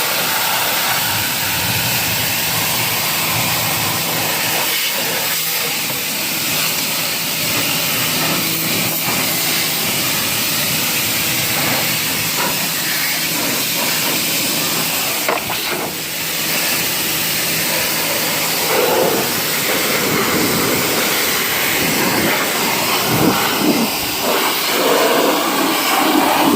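Pressure washer spraying: a loud, steady hiss over a low hum, turning more uneven and splashy in the last several seconds.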